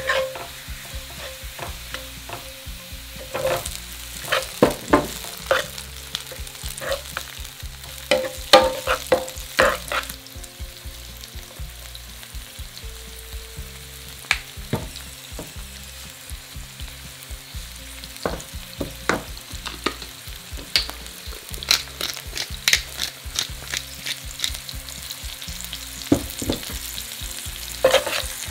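Olive oil sizzling steadily in a non-stick frying pan as garlic, chili and broad beans fry, with a wooden spatula scraping and tapping against the pan again and again, in bunches.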